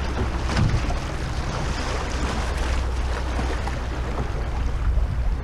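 Fast river current rushing and rippling past a canoe, with a steady low wind rumble on the microphone.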